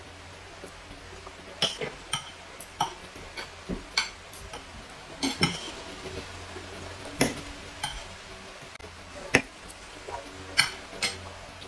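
Metal spoons and forks clinking and scraping on plates while eating: scattered, irregular light clinks, about one to two a second.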